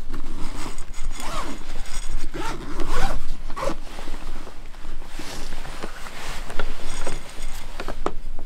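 A zipper being pulled in a run of short rasping strokes, with fabric rustling.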